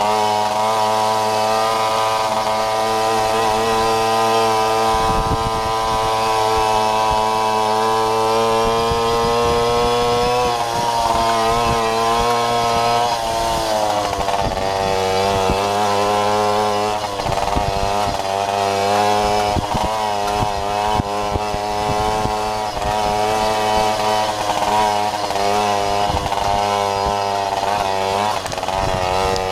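Babetta moped's small single-cylinder two-stroke engine running under throttle, its pitch climbing slowly, dropping sharply about a third of the way in, then wavering up and down as the throttle changes.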